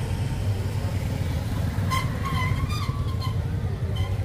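A steady low engine rumble, as of a vehicle running, with a few brief high-pitched tones and clicks about halfway through.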